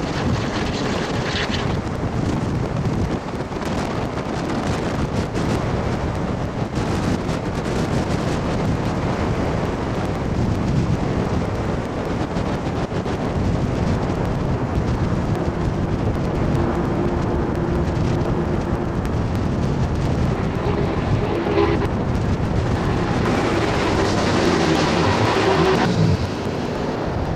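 Union Pacific 844, a 4-8-4 steam locomotive, running at speed with its train, heard as a steady rumble under heavy wind noise on the microphone; it swells a little near the end.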